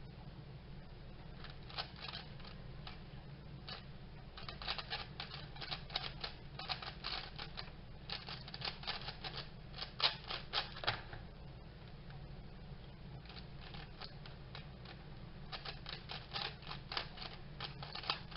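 WeiLong V1 3x3 speedcube being turned very fast: dense flurries of sharp plastic clicks, broken by a short pause of a couple of seconds about two-thirds of the way through. A steady low hum runs underneath.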